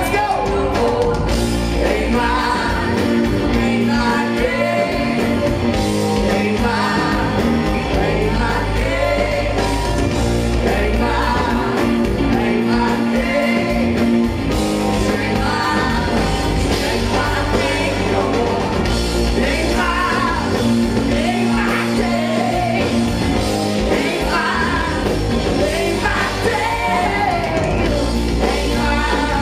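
Live rock band performing: a man singing lead over electric guitar and drums, loud and steady.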